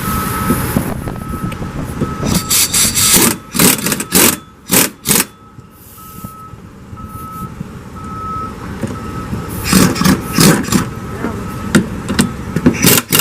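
A reversing-alarm beeper sounding steadily at about two beeps a second. Over it come bursts of clattering and clanking from tools on metal.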